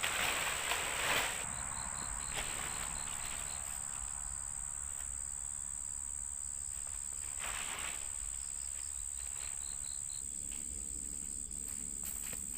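Crickets: one keeps up a steady high-pitched trill throughout, and another chirps in two short runs of about five chirps a second. Rustling noises come near the start and again around two-thirds of the way through.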